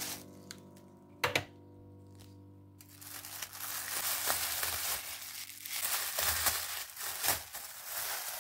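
Thin plastic bags crinkling and rustling as they are handled and stuffed into a hanging plastic bag, starting about three seconds in, with a sharp crackle just over a second in. Soft piano music plays underneath.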